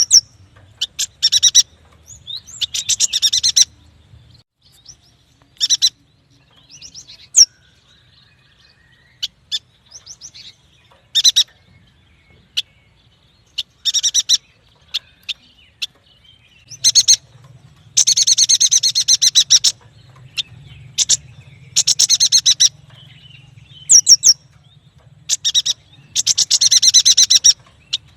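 Yuhina singing: repeated bursts of rapid, high chattering trills, some brief and some running for a second or more, coming thicker and longer in the second half.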